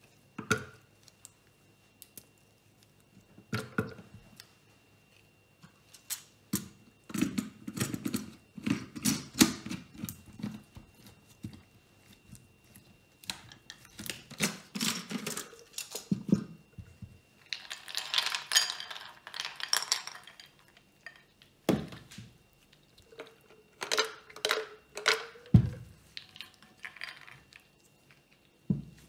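Clinks and knocks of chocolate-bar pieces dropping into a glass blender cup and the cup being handled on the table, in irregular clusters. About two-thirds of the way through comes a rustling stretch lasting about two seconds.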